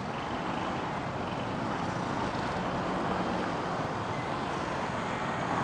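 Steady roadside traffic noise: vehicle engines running nearby, with no sudden events.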